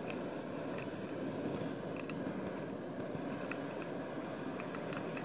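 Multi-cylinder model Stirling engine running steadily under flame heat with its propeller spinning: an even, low whirring rush with a few faint light ticks scattered through.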